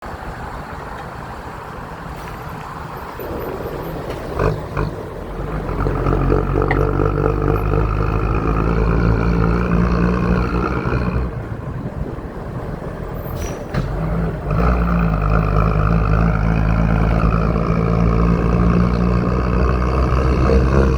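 Mercedes-Benz 1114 truck's six-cylinder diesel engine running with a steady low rumble that grows louder about four seconds in, drops back for a few seconds past the middle and then comes back up. Short sharp knocks about four and a half seconds in and again near thirteen and a half seconds.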